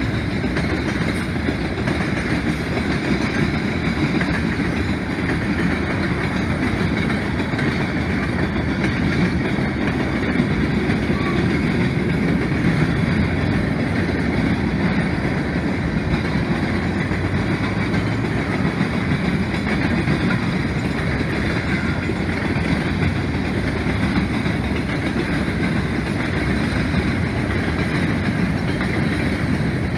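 Freight train's covered hopper and tank cars rolling past: a steady rumble and clatter of steel wheels on the rails.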